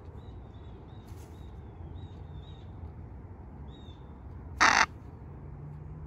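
A Miligold macaw gives a single short, harsh squawk about three-quarters of the way in.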